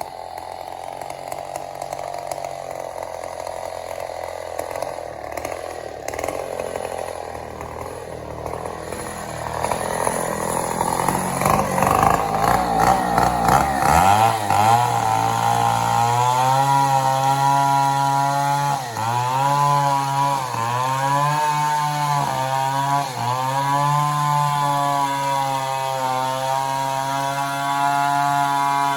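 Two-stroke chainsaw cutting mahogany. It starts fainter and grows louder about ten seconds in. It then runs at high speed, its pitch dipping briefly several times as the chain bogs under load in the wood.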